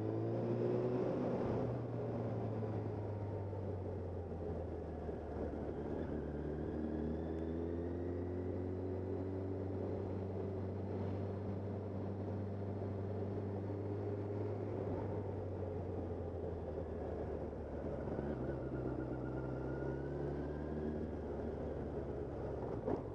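Suzuki GSX750F motorcycle's inline-four engine running under way, heard from the rider's camera with wind and road noise. It rises in pitch over the first couple of seconds as the bike accelerates, holds steady, then sits lower in the last several seconds as it eases off.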